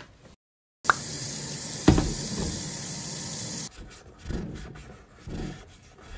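Tap water running into a stainless-steel sink for about three seconds, with a knock near the start, then stopping. After it, rubber-gloved hands scrub burnt-on residue in a small saucepan, with rubbing strokes about once a second.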